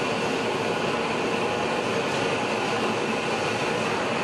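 Steady roar of a large propane heating torch burning without a break.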